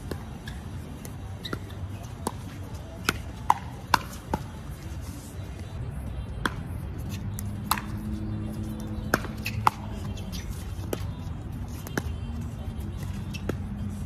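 Pickleball rally: paddles hitting a plastic pickleball with sharp, hollow pops at an uneven pace. A quick run of four volley pops comes about three seconds in, with more hits later on.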